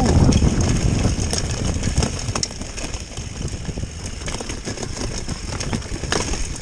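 Mountain bike running fast down a rough dirt trail: a continuous rumble and clatter of tyres, frame and camera mount shaking over the uneven ground. It is loudest in the first second, with a sharp knock about six seconds in.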